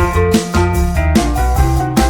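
Upbeat background music with a steady drum beat and bright pitched melody notes.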